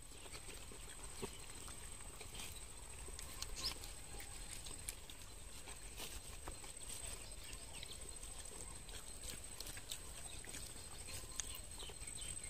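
Quiet outdoor ambience with faint scattered clicks and rustles of fingers working rice on banana leaves, a few short high chirps here and there, and a thin steady high whine throughout.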